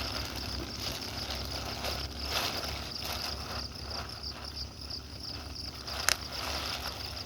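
Steady high-pitched chirring of insects, a constant pulsing drone, over a low rumble, with a single sharp click about six seconds in.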